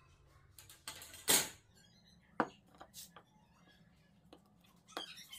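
A few sharp separate clicks and knocks as small steel parts are handled against a hardwood fence and the sled base: a drill bit is fitted into a hole in the fence. The loudest knock comes about a second and a half in.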